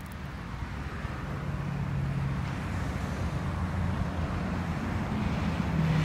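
A motor vehicle's engine, a low steady hum that grows gradually louder as it approaches on the road.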